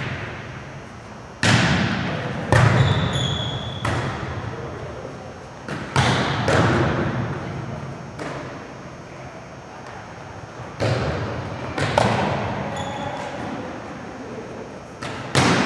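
Volleyballs being struck during a serve-receive and passing drill: several sharp slaps of hands and forearms on the ball, some in pairs about a second apart, each ringing on in the echo of a large gymnasium.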